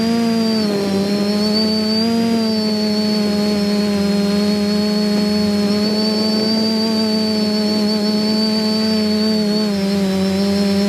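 Quadcopter's brushless motors and propellers buzzing steadily in flight: a pitched hum with a thin high whine above it. The pitch sags briefly about a second in and again near the end.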